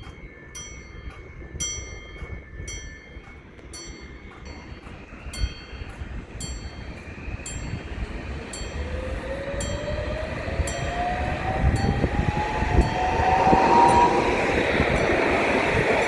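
Train approaching and passing, its rumble and rushing noise growing steadily louder, with a whine that rises in pitch over several seconds. A bell-like ding repeats about once a second through the first half.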